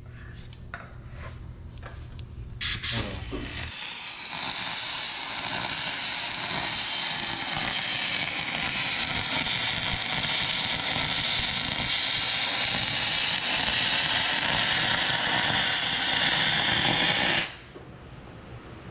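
MIG welding arc running on aluminium engine-block parts: a steady hiss that starts about two and a half seconds in and cuts off suddenly near the end. A low hum and a few clicks come before it.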